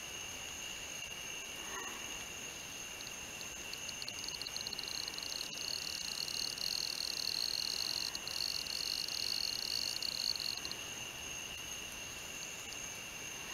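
Night insect chorus: steady high trills of crickets or katydids, with a louder, higher trill joining about three seconds in, stuttering at first, then steady with a brief break, and cutting off near the end.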